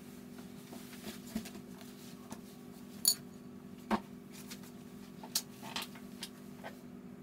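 A paintbrush tapping and clinking against a ceramic watercolour palette while mixing paint: a handful of short, sharp ticks, the loudest about three and four seconds in, over a steady low hum.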